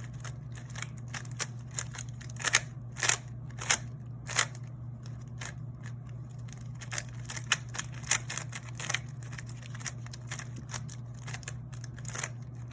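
Plastic speed cube being turned by hand, its layers clicking and clacking in quick irregular turns, a few louder snaps among them, while the fresh Martian lubricant is worked in. A steady low hum underlies it.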